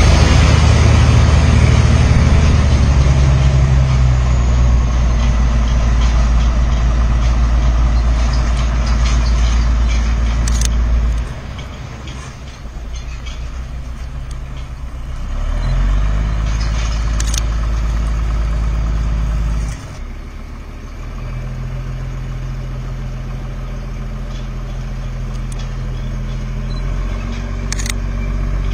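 Engine idling with a steady low hum that drops sharply in level about eleven seconds in, comes back about four seconds later and drops again near twenty seconds, with a few brief clicks.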